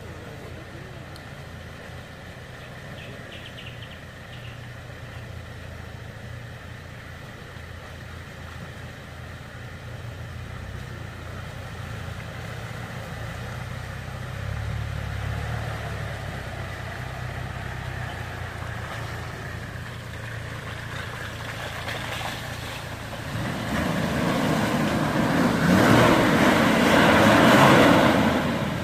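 Toyota Land Cruiser 70-series 4x4 crawling through deep mud, its engine a low steady drone under load. It grows louder as the truck comes closer, loudest near the end as it passes close by with its tyres churning through the mud, then drops off sharply.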